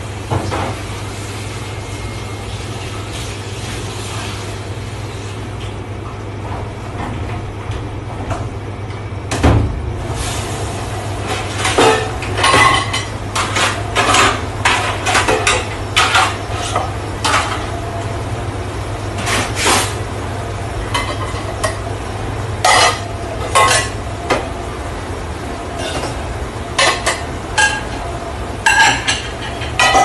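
Stainless-steel bowls, pans and plates clattering and clinking against each other as they are handled and stacked into a dish rack. The clinks come thick and irregular from about ten seconds in, over a steady low hum.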